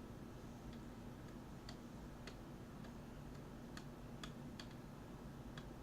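Faint, irregular clicking of computer keyboard keys, about ten light clicks spread unevenly, over a faint steady hum.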